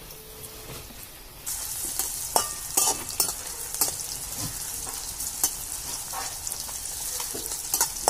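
Sliced onions frying in hot oil in a metal kadai, starting to sizzle about a second and a half in, with a metal spatula scraping and knocking against the pan as they are stirred.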